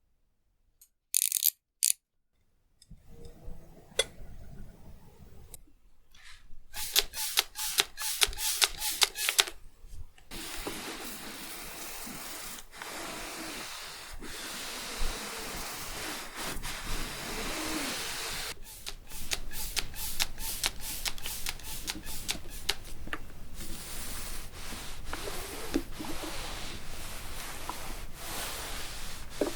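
A clothes iron worked over fabric: two short sharp bursts about a second in, a quick run of sharp hissing strokes around seven to ten seconds in, then steady hissing and rubbing as the iron slides back and forth, with frequent small knocks.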